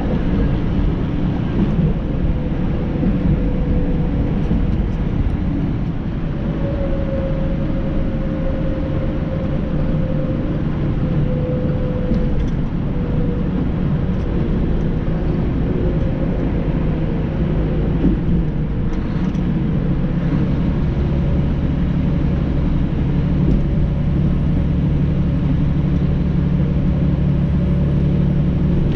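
Tractor-trailer truck running on the road: a steady engine drone with road rumble. About twenty seconds in, the engine note changes to a steadier, stronger hum.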